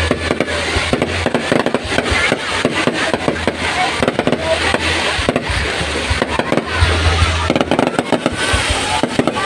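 Fireworks display going off in rapid succession: a dense run of bangs and crackles, with crowd noise underneath.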